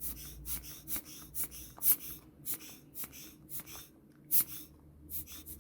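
Quick repeated puffs of air blown into an iPhone 4S charging port, roughly two or three a second in uneven bursts, to clear out packed lint and debris.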